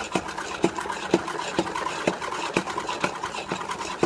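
Korean-style spin mop being spun in its bucket's spinner basket: a steady whirring with a sharp click about twice a second as the handle is pumped.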